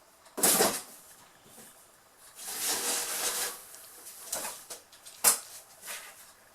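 Cardboard box scraped, rustled and knocked as Birman kittens scramble and jump in and over it: a sharp knock about half a second in, a longer scratching rustle about two seconds in, then a few shorter knocks near the end.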